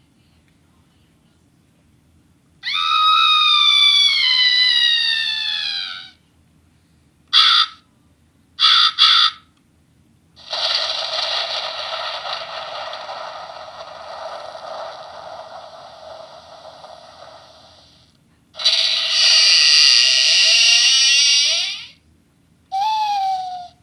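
A toy scary-sound-effect machine playing one spooky effect after another through its small speaker, with short pauses between: a long cry falling in pitch, a few short bursts, a long noisy effect that slowly fades, then another loud effect with a rising sweep and a short falling cry near the end.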